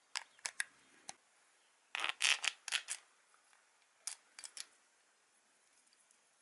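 Sharp clicks and a short clatter of small hard parts or tools being handled. There are a few single clicks, a quick burst of clatter about two seconds in, then a few more clicks about four seconds in.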